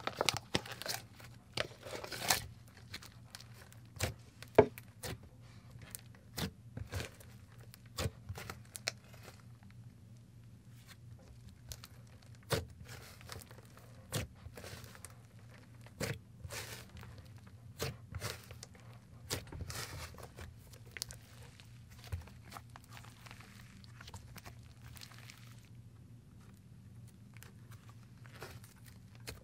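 Thick clay slime being kneaded, folded and pressed by hand, giving irregular crackling pops and squishes, several a second at times, over a faint steady low hum.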